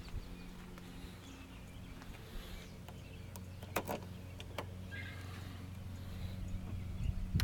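A 150cc scooter's small single-cylinder engine idling steadily, with a few sharp clicks a little under four seconds in and again shortly after.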